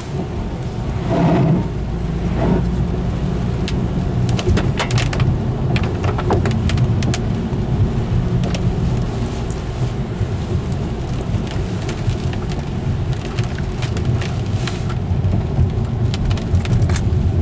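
A car driving through a hurricane: the engine runs with a steady low hum under constant wind and rain noise, with scattered sharp ticks hitting the car and a couple of louder swells in the first few seconds.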